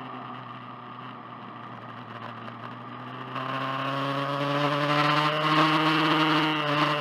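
BMW S1000RR inline-four engine at low revs, nearly off the throttle for about three seconds, then opening up with the pitch rising steadily as the bike accelerates.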